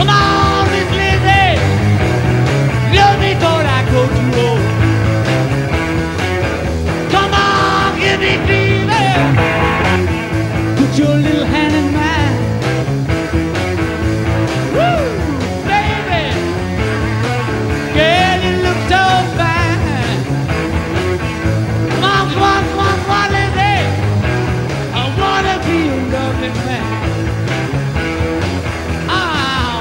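Live rock and roll band playing, with electric guitar, bass and drums under a male lead vocal.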